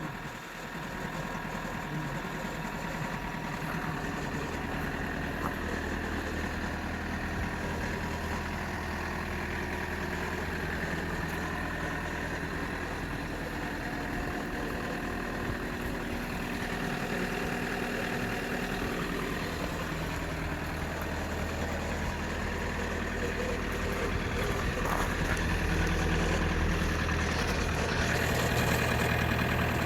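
Toyota Corolla E120's 2.0 D-4D four-cylinder turbodiesel idling steadily on a cold start, with a strange noise that the owner cannot place; it gets a little louder over the last few seconds.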